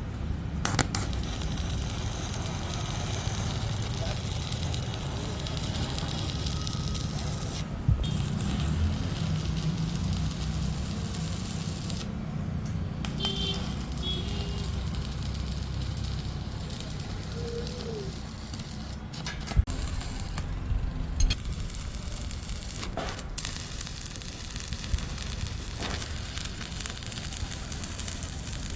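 Electric arc welding on steel: the arc's steady crackling hiss, which stops briefly several times and starts again.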